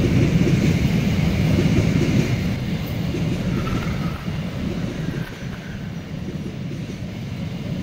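Empty open coal wagons rolling past on the rails: a steady low rumble of wheels on track, easing off somewhat after about two and a half seconds.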